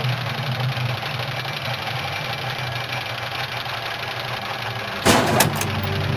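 Steady mechanical drone of machinery running, a low hum under a dense rattling haze, with a sudden loud burst of noise about five seconds in.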